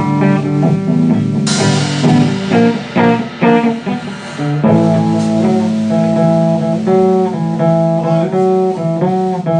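Guitar playing a blues riff of picked notes and chords, with a hard-strummed chord about a second and a half in. In the second half, held low notes sound under higher notes that bend in pitch.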